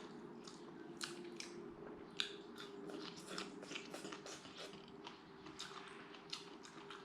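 A person chewing and biting roast chicken close to the microphone: a string of soft, irregular clicks and smacks. A faint steady hum lies underneath.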